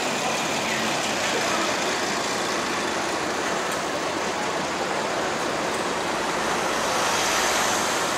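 Street traffic: an articulated Mercedes-Benz Citaro city bus drives past close by, its engine and tyres making a steady noise. Near the end the noise swells with a deeper rumble as a van passes close.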